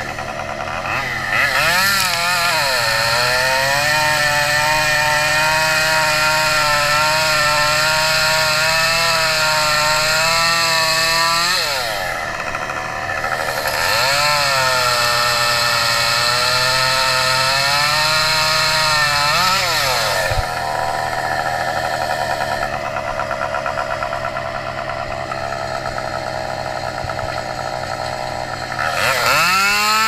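Gas chainsaw cutting wood. It revs up to full throttle twice and holds there for about ten seconds and then about six seconds, its pitch wavering under load. In between it drops back to a lower idle, and it idles again for the last third until it revs up once more right at the end.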